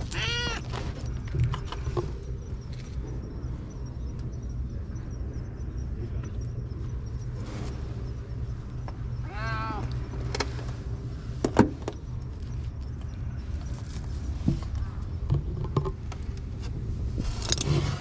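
Domestic cat meowing twice, once just after the start and once about halfway through, each call rising and falling in pitch. A steady low rumble runs underneath, with a single sharp click about two-thirds of the way through.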